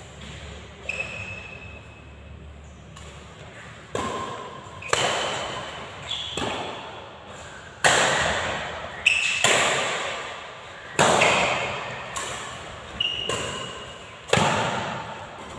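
Badminton rally: rackets striking a shuttlecock, sharp cracks about once a second from about four seconds in, each ringing on in the echoing hall. Short high squeaks of shoes on the court come in between.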